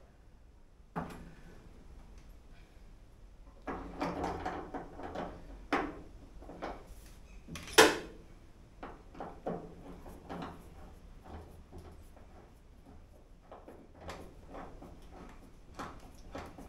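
Hand-tool work on the door lock striker on a Toyota Corolla KE20's door pillar. Tools and small metal parts clink and clatter, with a sharp metallic clack about eight seconds in, then lighter clicks as the striker screws are turned with a screwdriver.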